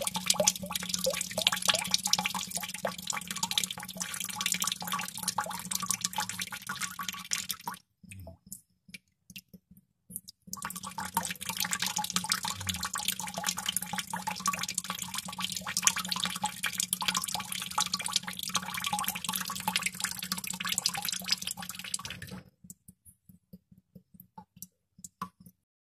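Water droplets falling fast into water, many drops a second, in two long runs broken by a pause of about two and a half seconds with only a few stray drops. Near the end it thins to a handful of single drips.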